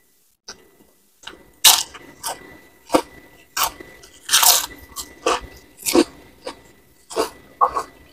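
Close-up crunching of a crisp fried cracker being bitten and chewed: about a dozen sharp crackles, roughly two a second, starting about a second and a half in.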